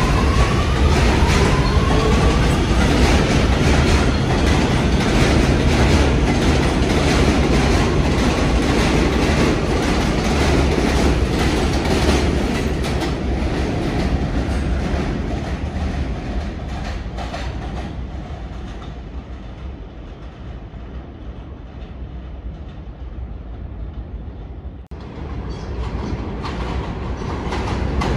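New York City subway train running through a station, wheels clattering over the rails, with a motor whine rising in the first second. The noise fades over the middle, then after a sudden break near the end train noise builds again.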